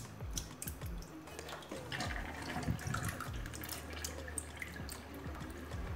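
Water dripping and splashing as a hand presses and turns wet green grapes in a bowl at a sink, with small scattered clicks and light sloshing.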